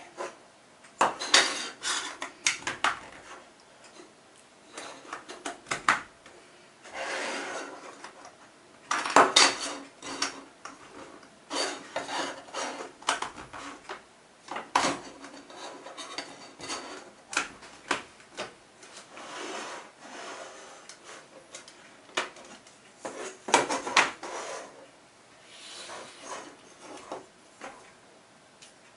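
Plastic toy rail track sections being slid across a table and fitted together by hand, with a connector pushed into a track end. It is a string of irregular clicks and short rubbing scrapes with brief pauses between.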